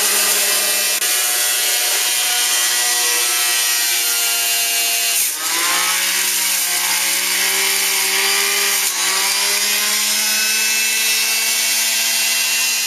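Breville Juice Fountain's 600-watt centrifugal juicer motor running loud and steady with a whine. About five seconds in its pitch drops sharply as the motor takes the load of a whole apple being ground, then climbs back up.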